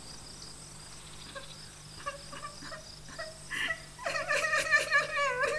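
Crickets chirping. About four seconds in, a girl's high, wavering crying sets in: the strange sounds that lead the firefly to the lost Verunka.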